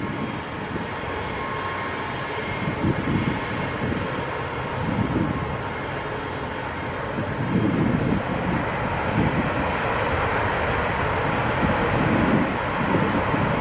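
A Boeing C-17 Globemaster III's four turbofan engines run in reverse thrust as it backs up under its own power. A steady jet roar carries a thin whine, with a low rumble that surges in gusts and gets a little louder about halfway through.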